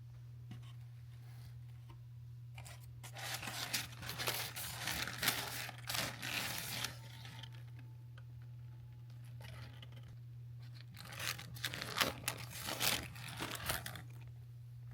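Packaging being torn open and crinkled by hand, in two spells of rustling and crackling a few seconds apart.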